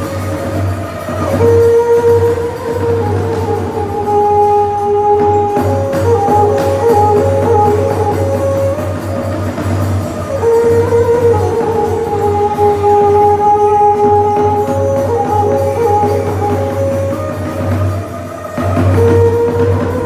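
Khmer ngũ âm (pinpeat) ensemble music accompanying a dance drama: a melody of long held notes whose phrase repeats about every nine seconds, over a steady low drum beat.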